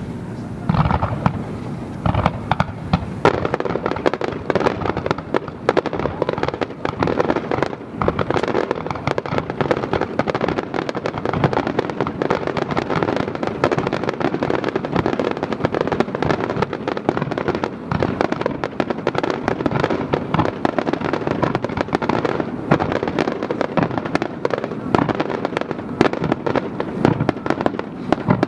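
Aerial fireworks going off in a dense barrage: a steady mass of crackling with many overlapping bangs and deep booms, starting in earnest about a second in.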